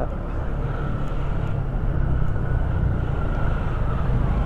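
Motorcycle on the move: a steady rumble of engine and riding noise, with a faint whine that drifts a little in pitch.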